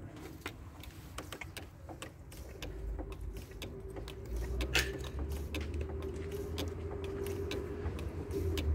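Diesel fuel lines and their plastic connectors being handled in an engine bay: many small irregular clicks and rattles. A steady low hum comes in about three seconds in and grows louder.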